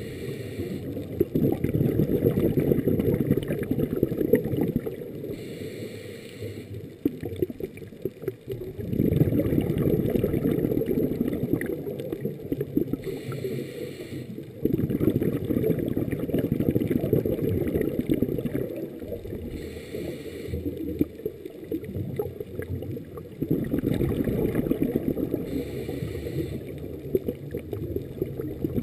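Scuba diver's breathing through a regulator, heard underwater: a short hiss on each inhale, then a rush of exhaust bubbles lasting a few seconds. The cycle repeats about every six to seven seconds.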